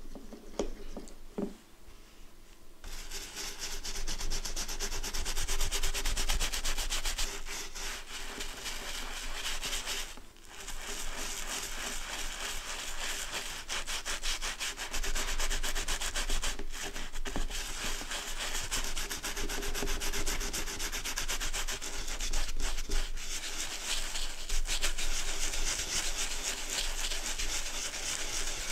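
A brush scrubbing white lather over woven leather in quick, continuous strokes, a steady scratchy brushing that starts about three seconds in and pauses briefly around the middle. Before it, a few light knocks.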